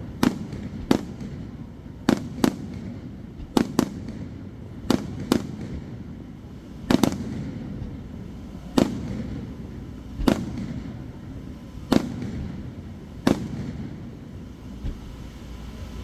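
Aerial fireworks shells bursting in a string of sharp bangs, roughly one a second and some in quick pairs, over a steady low rumble.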